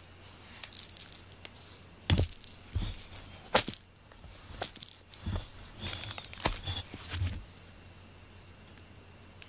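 Small metal bell on a feather cat teaser toy jingling as the toy is jiggled, in a series of quick shakes with a thin high ring. The shaking stops about seven seconds in.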